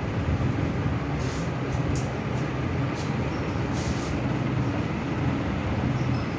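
A steady low mechanical hum with a constant background noise under it, and a few faint brief rustles.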